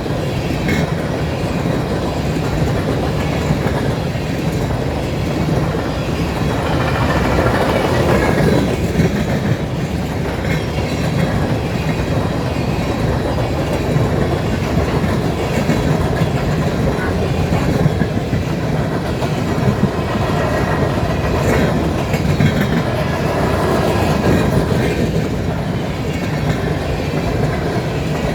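Empty covered hopper cars of a BNSF grain train rolling past at track speed: a steady loud rolling noise of steel wheels on rail, with scattered sharp clicks.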